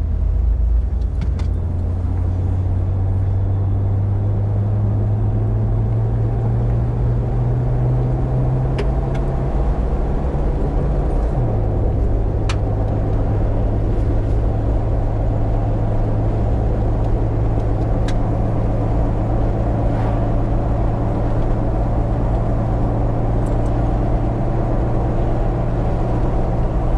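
Car engine and road noise while driving. The engine note climbs slowly for about eleven seconds, then drops abruptly, like a gear change, and runs on steadily.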